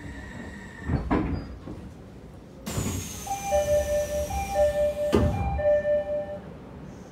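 Odakyu 3000-series train at a station stop: a thud, then a sudden hiss of air as the doors open, and the two-note door chime (high then low) sounding three times, with a knock partway through.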